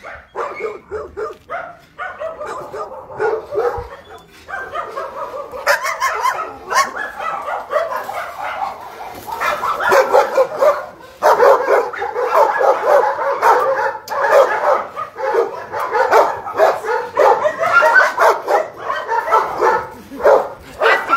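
Kennelled shelter dogs barking and yipping, several voices overlapping. The calls are scattered at first and become louder and almost continuous about halfway through.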